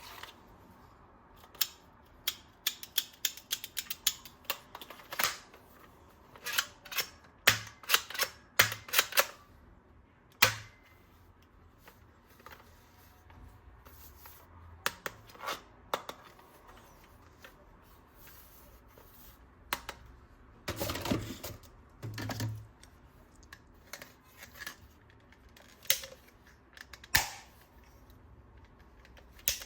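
Sharp hard-plastic clicks and snaps from toy guns being handled and fitted together, coming singly and in quick runs, with a longer plastic rustle or rattle about two-thirds of the way through.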